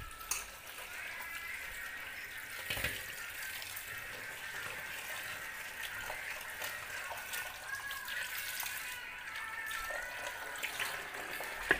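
Tap water running steadily into a steel pan of cut yam pieces as hands stir and rinse them in the sink, with a sharp knock right at the end.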